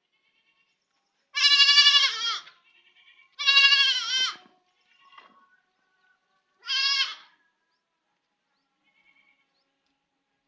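Baby goat bleating three times: loud, high, quavering cries, each dropping in pitch at the end, with fainter short calls in between.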